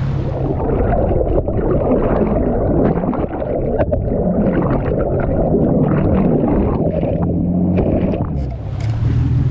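Boat engine running under a dense rush of churning water at the hull, with scattered knocks. The water noise drops away about eight seconds in.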